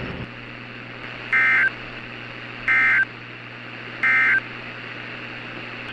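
Emergency Alert System end-of-message code: three short, identical warbling digital data bursts, about a second and a half apart, over a steady background hiss and hum. They mark the end of the alert, and the audio cuts off abruptly just after the third.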